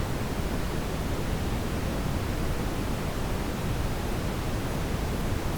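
Steady brown noise, an even deep rushing hiss heaviest in the low end, with a nightfall forest ambience mixed in beneath it.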